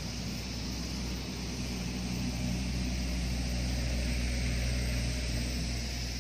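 A distant engine droning steadily, growing louder through the middle and easing off near the end, over a steady high hiss.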